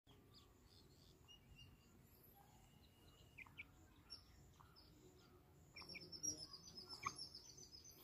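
Faint bird chirps and short whistled notes, then a quick run of high, rapid chirping near the end, with a couple of soft clicks.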